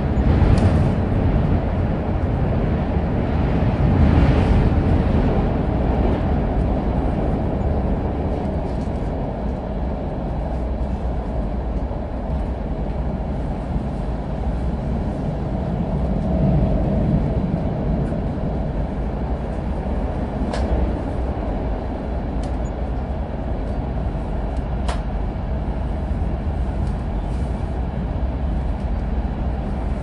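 Inside a moving passenger train: a steady low rumble of the wheels on the track, swelling slightly a few seconds in and again about halfway through. A few sharp clicks sound in the second half.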